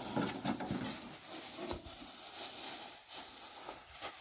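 Carob pods being tipped and spread by hand in a metal feeder, with scattered irregular clicks and rustling.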